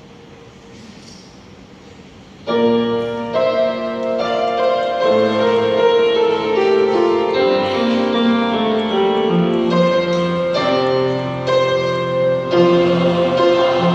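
Piano playing the opening chords of the introduction to a choral anthem, coming in suddenly about two and a half seconds in after a faint room hush.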